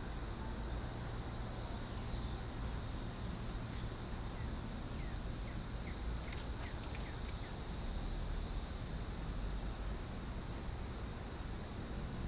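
Chorus of cicadas, a steady high-pitched drone that doesn't let up. Around the middle, a quick run of faint short chirps sounds beneath it.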